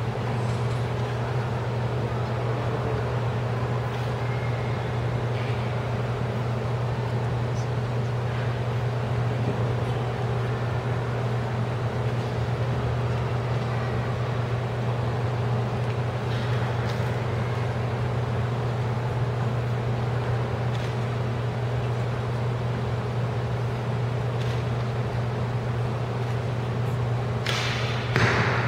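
A steady low hum throughout, then near the end a single sharp snap as a Japanese longbow (yumi) is loosed, its bowstring twanging on release.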